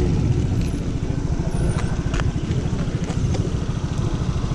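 Small motor scooter engine running at low speed, a steady low putter as the scooter rolls slowly along. A couple of faint clicks come about two seconds in.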